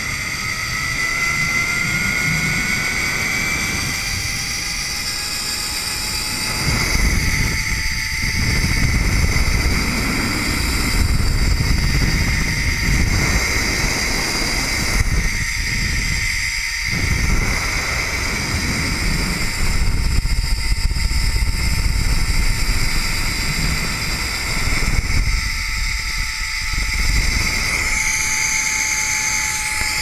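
Zipline trolley pulleys running along the steel cable: a whine that rises in pitch over the first several seconds as the rider picks up speed, then holds steady. Heavy wind rush on the microphone swells and fades underneath.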